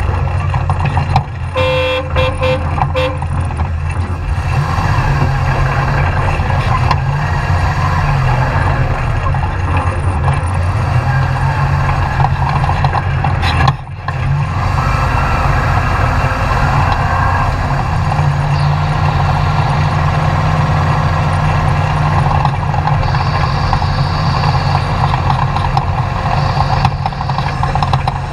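Off-road race truck engine running hard and steadily, with a horn sounding once, briefly, about two seconds in. The engine sound dips for an instant about halfway through.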